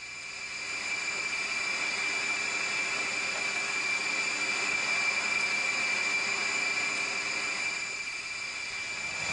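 Jet aircraft engines running with a steady high-pitched whine over a rushing hiss.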